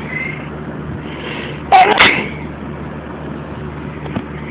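A person's sneeze, a loud two-part 'ah-choo' about two seconds in, made to set off a pet cat's answering call.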